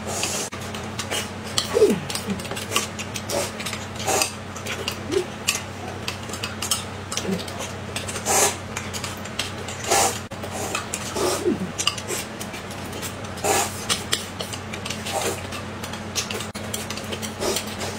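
Eating at the table: a metal spoon clinking and scraping in a glass bowl and chopsticks tapping a metal plate, in irregular clicks about every second, with occasional slurping.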